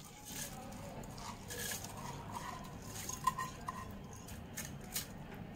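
Soaked raw rice scooped by hand from a stainless-steel bowl into a steel mixer-grinder jar: light clinks and knocks of steel on steel, with soft wet scraping.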